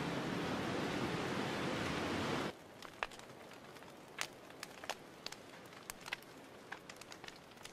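Campfire burning with a steady rushing hiss and a few sharp crackles. About two and a half seconds in, the sound cuts off abruptly to a much quieter background of scattered faint clicks and ticks.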